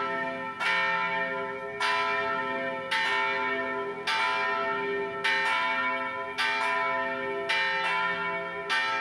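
Church bells ringing, a new stroke about every second, each ringing on and fading as the next one sounds.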